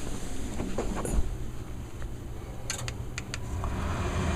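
A few sharp clicks, then about three and a half seconds in a Westinghouse two-stage gas furnace starts up, its steady rushing hum coming in over a low rumble as the thermostat calls for heat.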